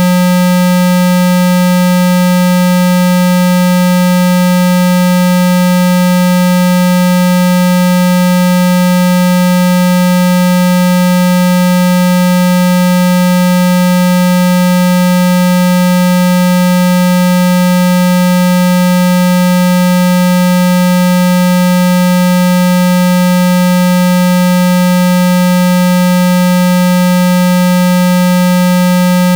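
Steady synthesized 195 Hz water-eject tone, a low hum with overtones held unbroken at one pitch. It is meant to vibrate a phone's speaker and push out trapped water.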